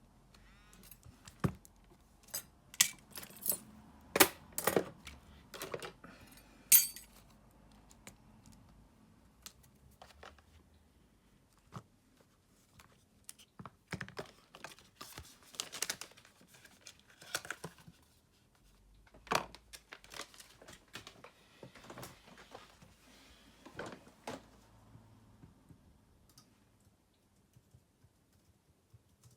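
Scattered clicks and light taps of small hard plastic and metal parts and tools as a smartphone is worked on by hand, with a cluster of sharper clicks in the first few seconds.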